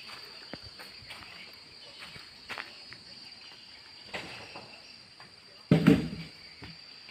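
Footsteps and small rustles, with a steady high-pitched insect drone underneath and one louder thump about six seconds in.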